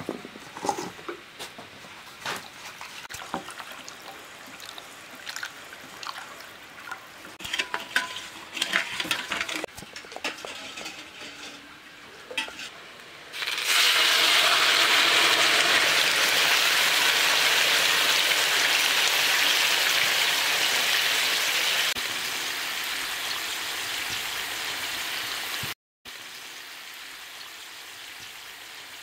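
Scattered light clinks and taps of metal dishes, then a loud steady hiss as liquid is poured from a metal bowl into a large black cooking pot of round food. The hiss drops in level after about eight seconds and cuts off suddenly near the end.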